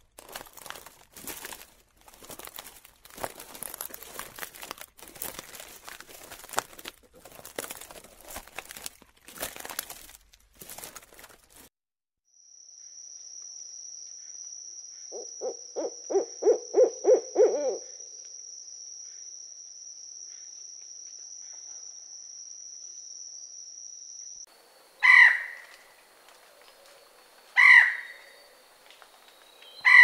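Irregular clicks and crackles, then a steady high insect buzz with a small owl giving a quick run of about ten low hoots, then an Indian peacock calling loudly three times, about two and a half seconds apart.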